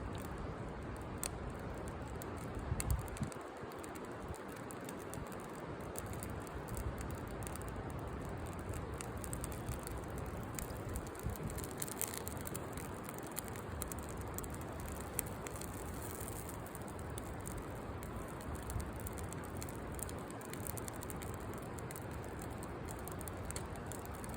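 Campfire crackling: scattered sharp pops and snaps over a steady hiss, with a low thump about three seconds in.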